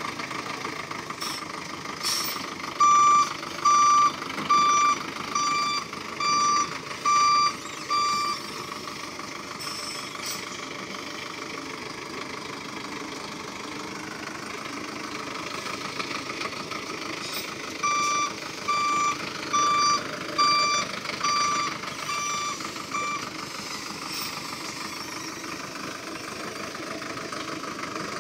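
Hoa Mai dump truck's diesel engine running as the truck backs up. Its reversing alarm beeps in two runs of about seven beeps each, a little under one a second: one starting a few seconds in, the other about two-thirds of the way through.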